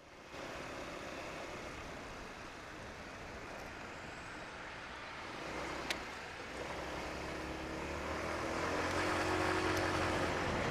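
Sinnis Shuttle scooter riding along, wind and road rush on the bike-mounted microphone. From about halfway through the engine hum comes through plainly and grows gradually louder as the scooter pulls away, with a single click a little before that.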